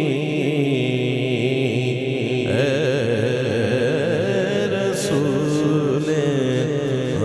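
A male naat singer singing a long, wavering melismatic line into a microphone, heard through a PA system, over a steady low hum.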